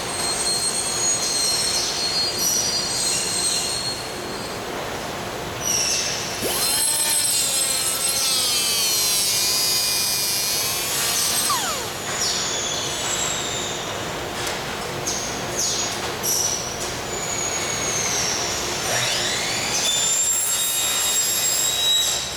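Workshop noise: repeated high-pitched squeals and screeches that glide in pitch, over a steady hum. The longest and loudest run of squealing comes about a third of the way in, with another near the end.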